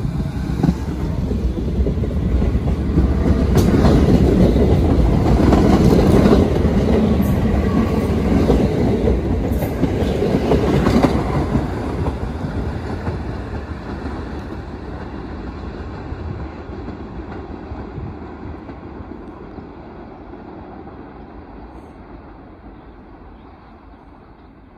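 1973 St. Louis-built R44 Staten Island Railway train pulling out and passing close by, its wheels rumbling and clicking over rail joints. The noise peaks in the first half, then fades as the train runs away down the line.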